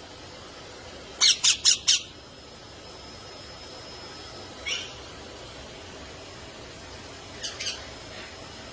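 Pet parrots squawking: four quick, sharp squawks about a second in, one more near the middle, and two fainter ones near the end.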